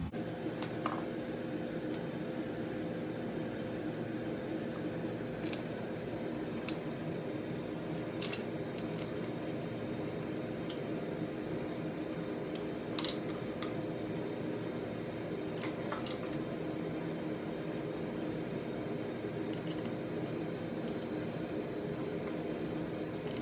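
Steady mechanical hum with a few fixed tones, with scattered light clicks and taps.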